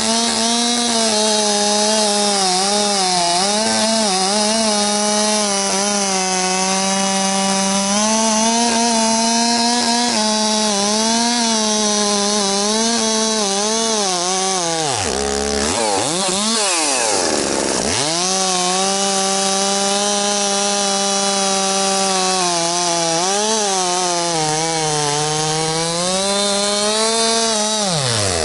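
Two-stroke gasoline chainsaw cutting through a thick log at high revs, its engine note wavering under load. About halfway through it drops to idle for a couple of seconds, then revs back up into the cut, and it dips again near the end. The saw is new and being run in on its first cuts.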